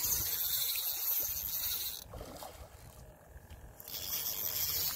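Wind buffeting an outdoor microphone: a low rumble with hiss on top, which eases about two seconds in and picks up again near the end.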